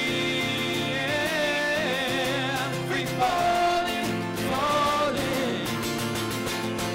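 Live acoustic band: male voices sing long held notes with vibrato over strummed acoustic guitar and ukulele.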